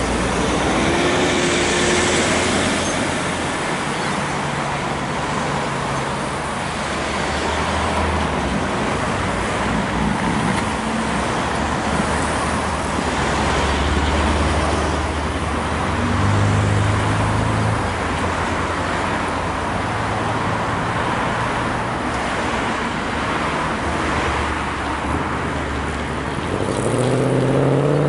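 Steady road traffic: cars driving past one after another, with engine and tyre noise. Near the end one car's engine rises in pitch as it accelerates away.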